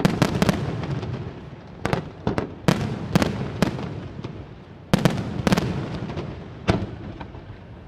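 Aerial fireworks shells bursting in an irregular string of about a dozen sharp bangs, each trailing a rolling rumble. The bursts thin out towards the end, with a last one near the end.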